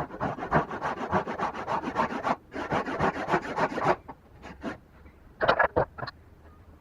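A hand tool scraping back and forth on wood in quick, even strokes, about six a second: two long runs with a brief break, then a pause and a few more strokes near the end.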